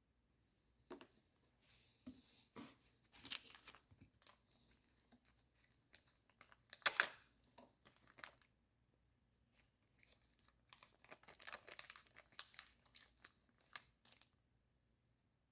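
Light scraping, clicking and crinkling of hands working the small parts of a fuel petcock rebuild: old seals being worked out and new ones fitted. The sounds come in irregular bunches, loudest about seven seconds in, with a short lull just after.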